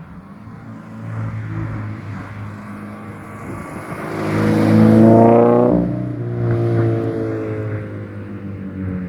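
Toyota GT86 / Scion FR-S flat-four engine accelerating, its pitch climbing to a loud peak about five seconds in. Near six seconds the pitch breaks off suddenly, like an upshift, and the engine carries on at a lower pitch that slowly falls away.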